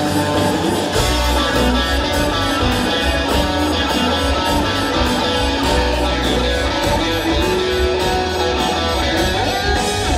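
Live rock band playing an instrumental passage led by guitar, over bass and a steady drum beat, with no singing.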